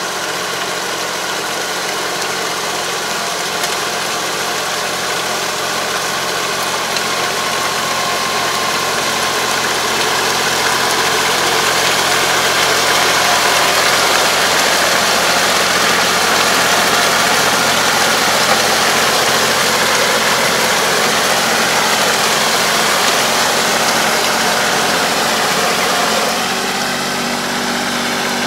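ISEKI semi-crawler tractor's diesel engine running steadily as it pulls a Kobashi 3 m drive harrow that churns the flooded paddy's mud and water while puddling the rice field. The sound swells as the tractor comes closer, and changes near the end as it passes close by.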